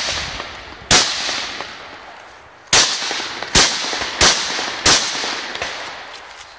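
Rifle fire in a practical shooting stage: five shots, a single one followed after a pause by four in quicker succession about two-thirds of a second apart, each trailing off in echo.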